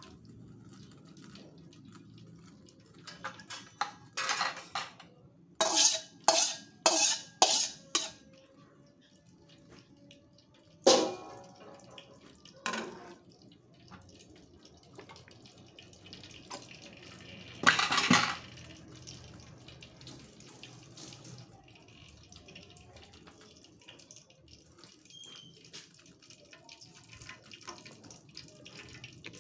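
Cookware being handled in a kitchen: a quick run of about six clattering knocks, a sharp clank about eleven seconds in and another shortly after, and a louder clatter around eighteen seconds, then only a faint steady hiss.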